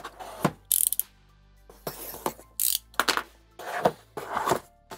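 Cardboard packaging of a keyboard being handled and opened: a series of knocks and clicks with two hissing slides of cardboard rubbing on cardboard, over background music.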